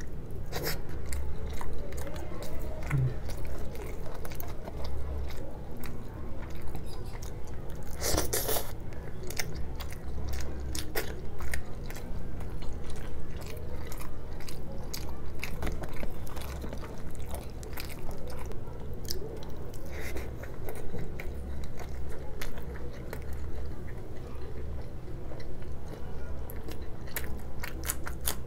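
Close-miked chewing and biting of fried Indian snacks: crisp matar kachori and puri with chana masala, with many small crunches and wet mouth sounds. About eight seconds in comes a louder crackly crunch lasting about half a second.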